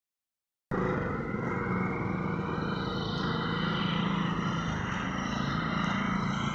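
A motor vehicle's engine running steadily, starting suddenly just under a second in.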